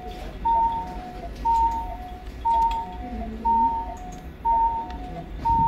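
Electronic medical-equipment alarm in an intensive care unit, sounding a repeating two-tone high-low beep about once a second over a low background hum.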